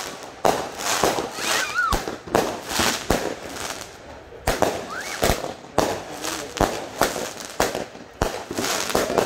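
Fireworks going off: a continuous run of sharp bangs and pops, about two or three a second, at irregular intervals.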